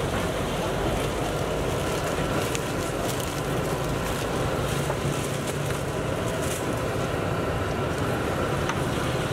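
Steady, loud roar of street background noise from traffic and a food stall's burner, even throughout, with a few faint crinkles or clicks.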